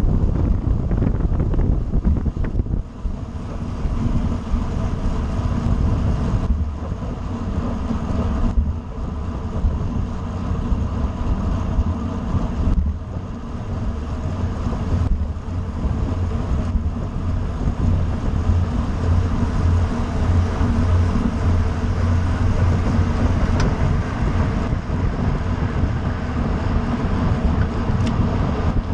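Wind rushing over the microphone of a camera mounted on a road bicycle riding fast on asphalt: a steady, loud, low rumble.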